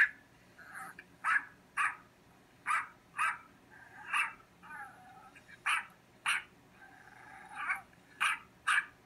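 A dog barking repeatedly: about eleven short barks at uneven intervals, with a few longer whining calls between some of them.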